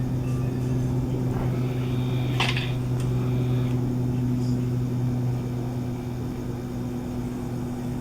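Steady low machine hum with no rise or fall, and one brief higher sound about two and a half seconds in.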